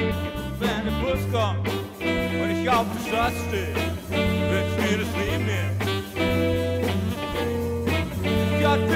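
Background music with a steady bass line and sliding, bending melody notes.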